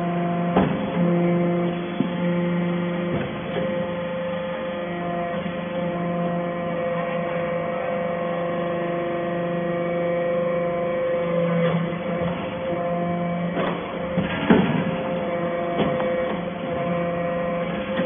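Hydraulic metal-chip briquetting press running while compacting stainless steel chips: a steady hum with several held tones that swell and fade in stretches as the press cycles, broken by a few sharp metallic knocks, the loudest about fourteen seconds in.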